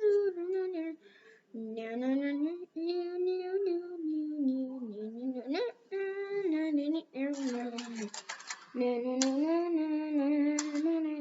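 A voice singing a tune to itself, in phrases of held notes with short breaks between them.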